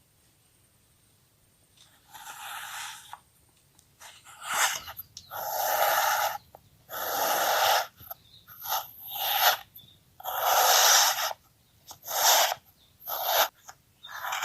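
Kinetic sand being cut: a series of about ten hissing, crunching strokes, each half a second to a second and a half long, starting about two seconds in.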